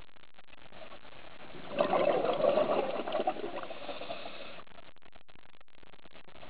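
A scuba diver exhaling through the regulator underwater: a burst of rushing, bubbling air starting about two seconds in and lasting about three seconds, over a faint steady underwater hiss.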